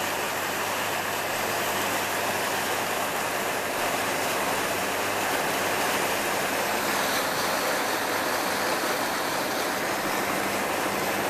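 Land Rover Defender 90's diesel engine running steadily at low revs, a low hum, under a continuous rushing hiss of floodwater as the vehicle wades slowly through it.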